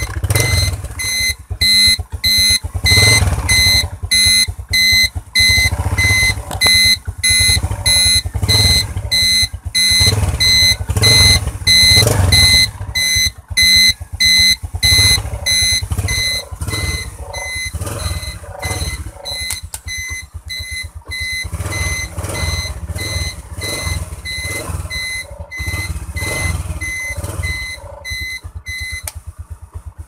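Motorcycle turn-signal beeper sounding in time with the flasher relay: a high-pitched beep repeating in a steady rhythm, which stops near the end. The Yamaha Crypton Z's engine is idling underneath.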